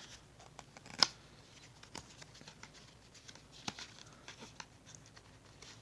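Phone-case packaging being opened by hand: scattered light clicks and handling rustles, with one sharp click about a second in.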